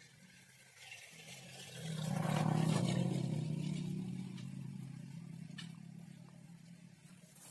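A motor vehicle passing by: its engine hum and road noise swell over a couple of seconds, peak, then fade away slowly.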